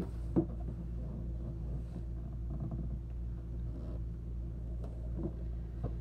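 A steady low machine hum, with faint clicks of hands handling a plastic plumbing fitting about half a second in and again near the end.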